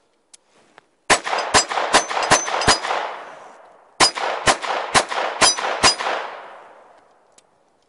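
Ruger LCP II .22 LR pistol fired in two quick strings of five shots, about two shots a second. Each string trails off in a long fading echo.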